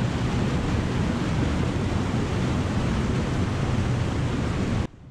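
Steady rushing of white water churning below a low river dam. It cuts off suddenly near the end to a much quieter hush.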